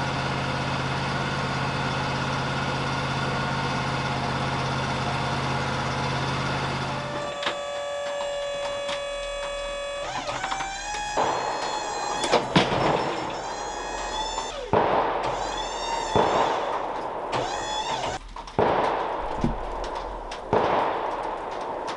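Wood-Mizer sawmill engine running steadily, shutting off about seven seconds in. After it comes a short steady tone, then a series of high squeaks that glide up and down, mixed with sharp knocks and clunks.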